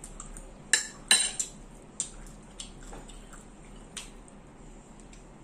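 Metal forks and a spoon clinking and scraping against plates and a metal bowl while eating. A cluster of sharp clinks comes about a second in, followed by single taps roughly once a second.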